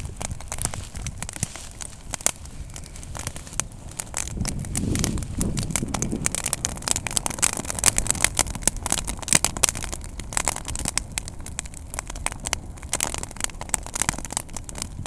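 Dry field grass burning, crackling and popping with many sharp snaps over a low rush of flame. The snapping is densest near the middle.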